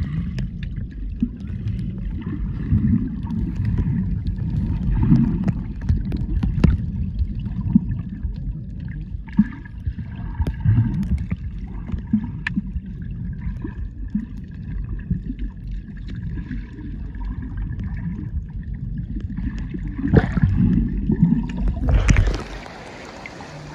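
Water heard through an underwater camera: a low, muffled rumble of moving water with scattered clicks and crackles. Near the end the camera breaks the surface and the rumble gives way to an open-air hiss of splashing water.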